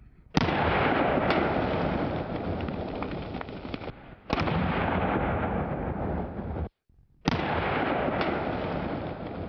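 Three separate loud bangs of pressurized plastic bottle targets bursting as .22 rifle rounds hit them. Each bang is followed by a few seconds of continuous noise that slowly fades.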